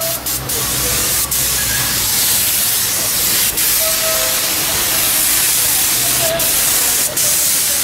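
Compressed-air paint spray gun with a gravity-feed cup, hissing steadily as it sprays a coat of paint onto a plastic car bumper, with a few very short breaks in the hiss.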